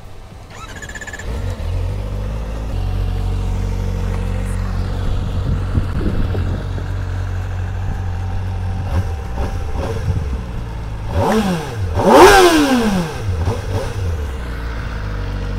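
Kawasaki ZX-4RR's 399 cc inline-four idling with a steady low hum. About eleven seconds in it gives a short burst of revs that rises and then falls back to idle.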